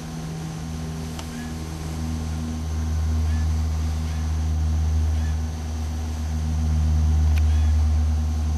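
Low, steady engine-like rumble with a hum, swelling louder about three seconds in and again near the end.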